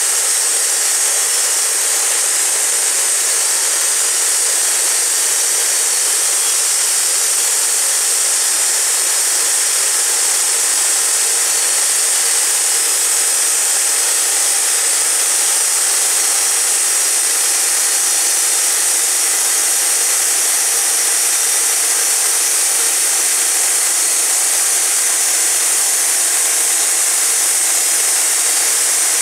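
Wood-Mizer LT40 portable band sawmill running and sawing through a cottonwood cant, a loud, steady, unbroken cutting noise.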